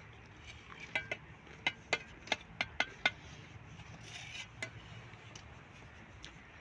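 A metal hand tool striking a hard surface: a quick run of about eight sharp, ringing clinks over two seconds, then a few scattered fainter ones.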